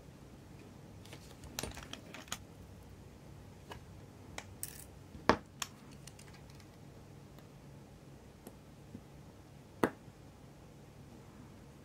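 Small metal watchmaking tools and watch parts clicking and tapping on a workbench during work on a chronograph movement: scattered light clicks with two sharper ones about five and ten seconds in, over a faint steady hum.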